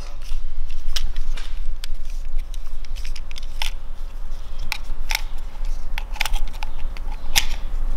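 Scattered light clicks and taps of a digital caliper and rubber-and-metal engine mounts being handled during a measurement, over a steady low hum.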